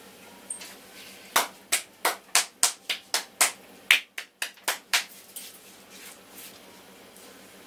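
Rhythmic hand strikes of an Indian head massage: a run of about a dozen sharp slaps or taps, roughly three a second, lasting a few seconds.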